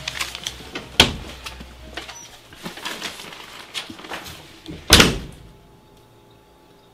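A door slams shut about five seconds in, the loudest sound here, with a short ring-out after it. Before that there is a sharp click about a second in and a few light knocks.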